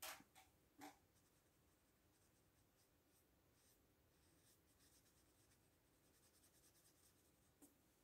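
Faint brushing of a watercolour paintbrush stroking on sketchbook paper, with a few light taps in the first second and another small tap near the end.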